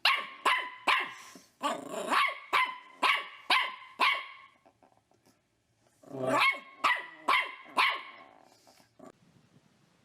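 A dog barking in quick runs, about two barks a second: some nine barks, a pause of about two seconds, then about five more.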